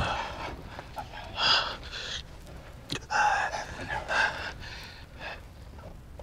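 A paper map rustling in several bursts as it is unrolled and handled.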